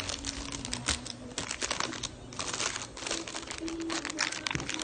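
Plastic packaging crinkling and crackling in irregular clusters as it is handled and opened.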